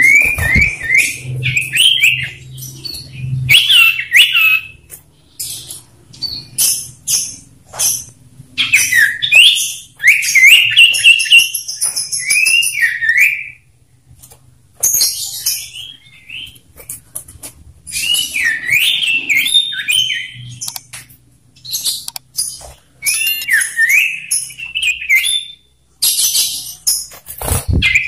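Male common ioras singing back and forth: loud whistled notes that slide up and down, quick runs of repeated notes, and harsh, high chattering calls between the phrases.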